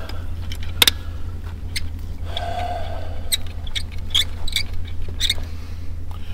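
Scattered metal clicks and clinks of a socket wrench working the lug nuts off a side-by-side's wheel, over a steady low hum.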